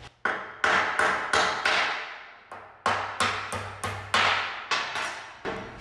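Hand hammer tapping snug-fitting steel alignment pins down through a stack of 3/4-inch steel hammer-form plates. The metal-on-metal blows come at about three a second, each ringing briefly, in two runs with a short pause a little before halfway.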